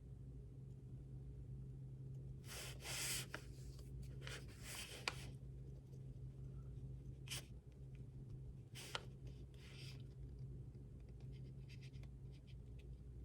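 Pen writing on paper: a few separate short strokes with pauses between, over a steady low hum.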